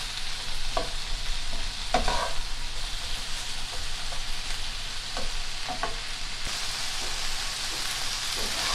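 Sliced onions and bell peppers sizzling in chicken drippings in a frying pan over medium-high heat, with a steady hiss. A slotted spatula stirs them, scraping and tapping the pan every second or so.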